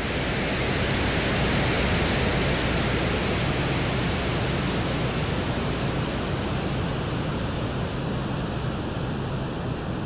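Venera 14 lander's microphone recording from the surface of Venus, a microphone built to pick up atmospheric wind noise: a steady hiss. A faint high steady tone joins near the end.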